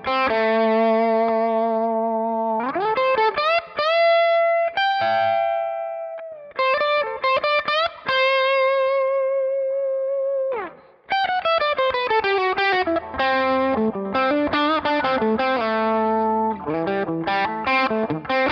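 Gibson SG electric guitar with Righteous Sound R-Top humbuckers, played through a One Control Honey Bee overdrive pedal into a Marshall Bluesbreaker amp: an overdriven single-note lead with long held notes, string bends and vibrato, then a quicker run of notes after a brief break about ten seconds in.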